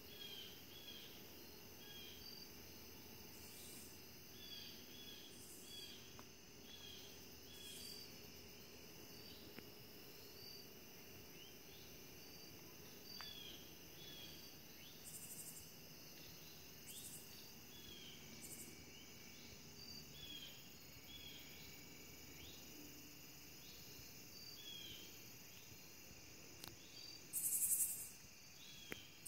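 Faint outdoor insect chorus: crickets trilling steadily, with short chirps repeating every second or so. A few brief hissy bursts come through, the loudest two near the end.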